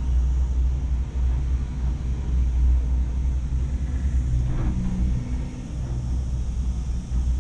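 Steady low rumble inside a moving cable-car gondola as it travels along the line.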